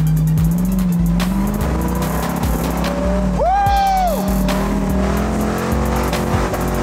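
Rock crawler's engine running under load, its pitch wavering as it works up a steep rock ledge. About halfway through a man lets out one loud yell, rising and then falling.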